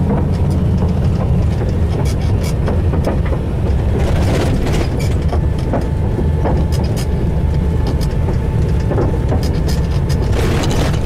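A vehicle driving, heard from inside the cab: a steady low engine and tyre rumble with frequent knocks and rattles as the wheels run over the wooden planks of a railway bridge.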